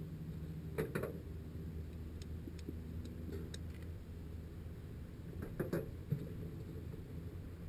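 Low steady hum with a few faint clicks and scuffs, about a second in and again near six seconds.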